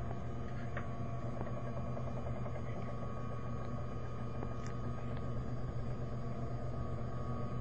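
A steady low hum with a faint steady higher tone above it, and a couple of light clicks.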